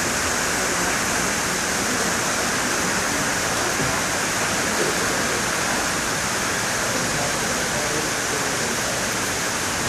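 Heavy downpour: a steady, even hiss of rain falling on trees and foliage.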